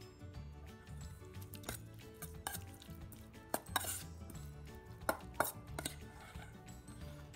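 Metal ladle stirring a moist meat-and-shallot mix in a stainless steel mixing bowl, scraping and clinking against the bowl's sides. About seven sharp clinks fall through the middle of the stir; the loudest come around halfway.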